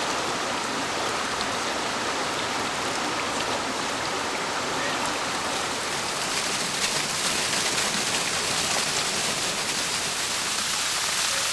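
Water of a rocky stream rushing and splashing over stones, a steady, even hiss.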